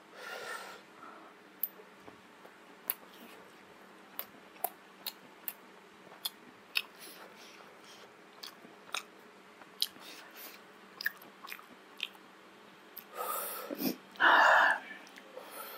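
Close-miked mouth sounds of a person chewing steamed vegetable momo dumplings: scattered short wet clicks and smacks, then a louder noisy sound lasting a second or two near the end.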